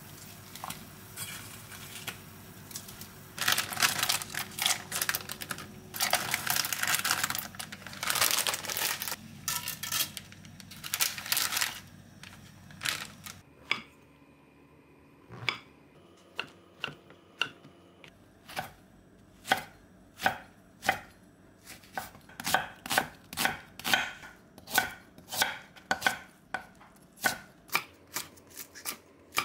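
Chef's knife cutting on a wooden cutting board. A louder, busy stretch of noise in the first half, then a few single strokes slicing mushrooms lengthwise, then steady chopping of green hot peppers at about two strokes a second.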